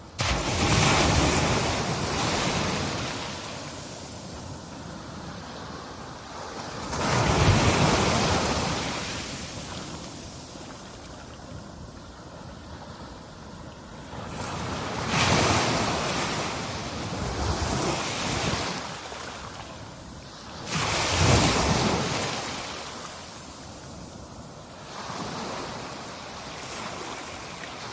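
Atlantic Ocean surf: waves breaking about every six to seven seconds, each one swelling to a loud rush and slowly fading, with a steady hiss of water between them. The last few breakers are smaller.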